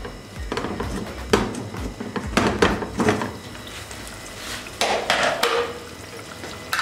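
Aluminium pressure cooker lid being worked loose and lifted off the pot: a series of light metal clanks and scrapes.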